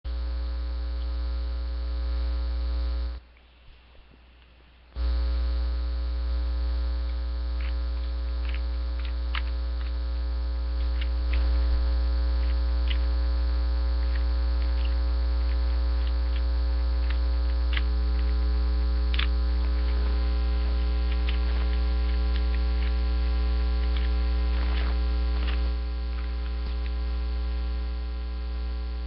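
Loud, steady electrical mains hum with a ladder of overtones. It cuts out for about two seconds around three seconds in, then returns. Faint scattered clicks come through the middle.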